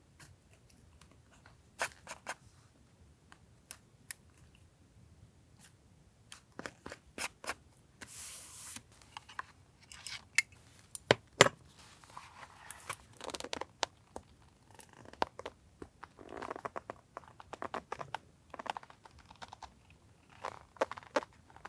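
Paper and stationery handled at a desk: scattered taps and clicks, with several short bouts of paper rustling and crinkling.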